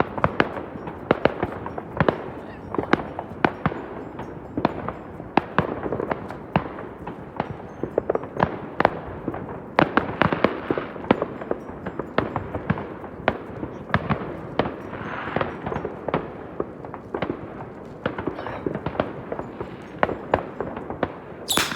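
New Year's fireworks and firecrackers going off in a steady barrage of sharp bangs, several a second, over a constant crackle. A much louder burst comes just before the end.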